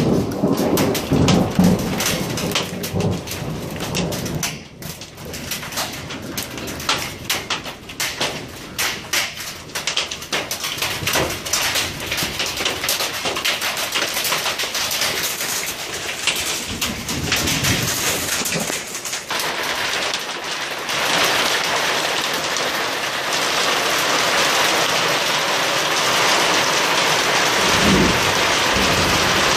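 Thunderstorm at night: thunder rumbles in the first few seconds, then rain patters with many close, distinct drops. About two-thirds of the way through, the rain turns into a steady, louder downpour.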